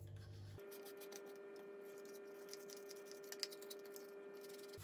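Faint handling noise from a Dyson V15 upholstery tool's plastic housing being turned in the hands and wiped with a cloth: light scattered ticks and rubbing, with one sharper click about three and a half seconds in, over a faint steady hum.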